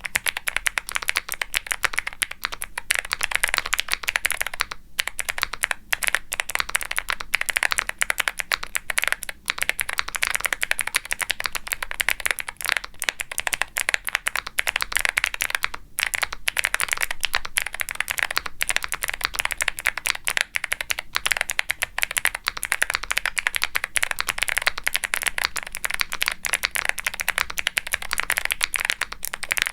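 Fast, continuous typing on a Womier SK75 mechanical keyboard with Gateron Melodic clicky switches: each keystroke gives a crisp click followed by a deeper pop as the key bottoms out on ABS keycaps. The typing stops briefly about five seconds in and again near sixteen seconds.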